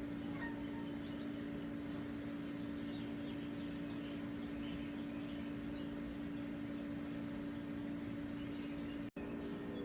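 A steady mechanical hum with a low drone, and faint scattered bird chirps above it. The sound drops out suddenly for an instant near the end.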